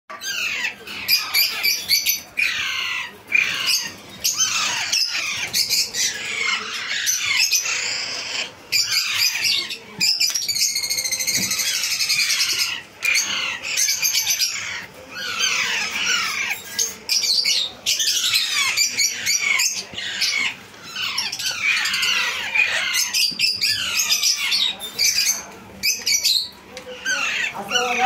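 Alexandrine parakeet chicks squawking almost without a break: many harsh, overlapping calls, the food-begging cries of hand-reared chicks at feeding time.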